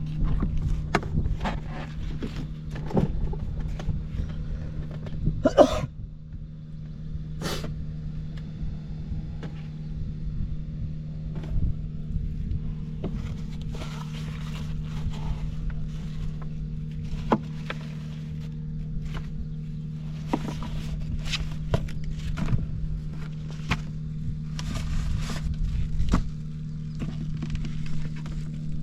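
Honda Cabina 50 scooter engine running at a steady, unchanging speed, with scattered knocks and clicks and a few short bursts of hiss over it. The seller describes it as running well with no abnormal noise.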